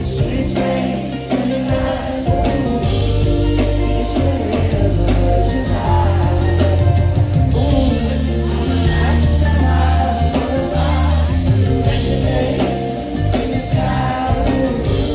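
A live soul band with a drum kit, electric guitar and heavy bass plays while a male lead singer sings into a microphone, with backing singers. It is heard from within the audience in a concert hall.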